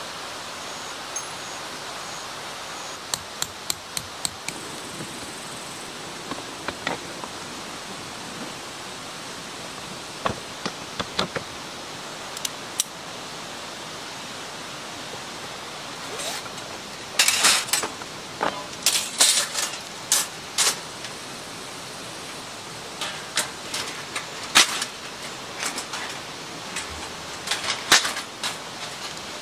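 Steady rushing of a stream under scattered sharp clicks and clinks of objects being handled. The clicks come in a small cluster a few seconds in and grow thicker through the second half.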